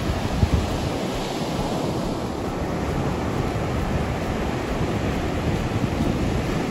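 Ocean surf breaking and washing up the beach, a steady rush of noise, with wind buffeting the microphone in low gusts.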